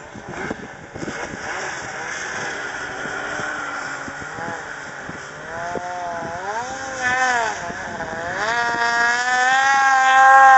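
Snowmobile engine revving, its pitch rising and falling several times and growing louder toward the end as a sled climbs the hill close by. The first part is a rougher, steadier haze of engine noise.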